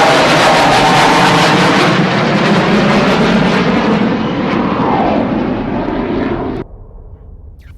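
Jet aircraft engine noise, loud and steady, with a falling pitch around the middle; it cuts off abruptly about six and a half seconds in, leaving a faint rumble.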